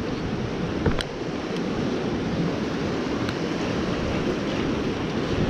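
Ocean surf washing steadily, with wind rumbling on the microphone. A single sharp click about a second in, with a couple of fainter ticks after it.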